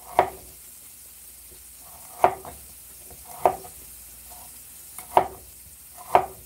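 Cleaver chopping a carrot on a wooden cutting board: five sharp knocks, unevenly spaced about a second apart. Under them, onions sizzle steadily in a frying pan.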